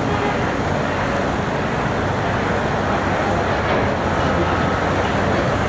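Cat 385C L hydraulic excavator's diesel engine running steadily, heard from across a construction site as a constant low drone.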